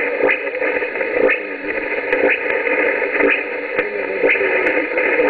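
Shortwave receiver tuned to 4865 kHz giving out static and hiss over a weak, barely readable signal, with sharp interference clicks repeating about twice a second.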